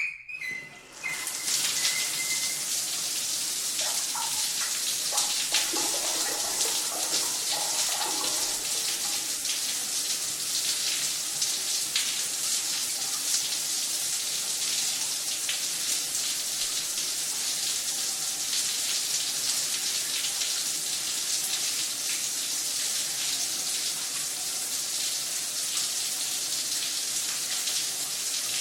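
A shower turned on: a short high squeak at the start, then the spray comes on about a second in and runs steadily, splashing unevenly for a few seconds before settling into an even hiss.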